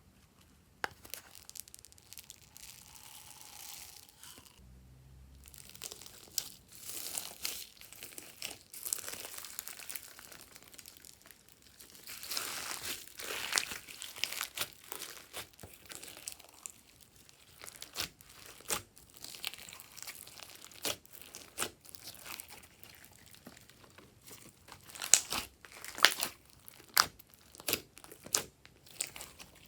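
Glossy slime being mixed and squeezed by hand: a run of irregular crackling clicks and sharp pops, loudest in a cluster near the end.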